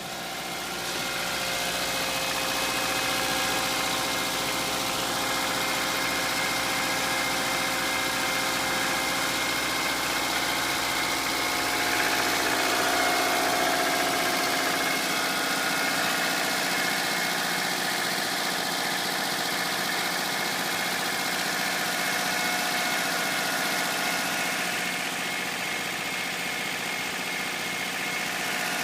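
Subaru EJ203 2.0-litre flat-four engine idling steadily in winter, within the first minutes after a cold start, when the owner says it knocks; the sound gets louder about a second in.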